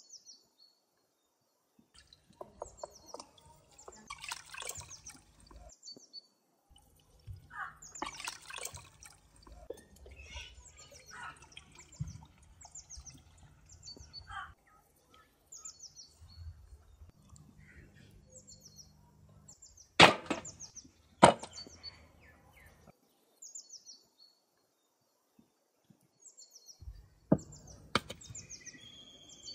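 Water splashing and sloshing as a raw whole chicken is washed by hand in a plastic basin, with small birds chirping over and over throughout. About two-thirds in come two loud, sharp knocks a second apart, and near the end a knife cuts into the raw chicken on a steel plate.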